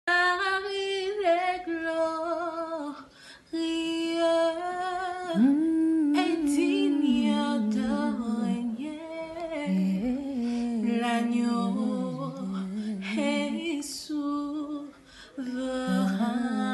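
A woman singing a French worship song a cappella, one voice holding and bending long notes, with short breaks for breath about three seconds in and again near the end.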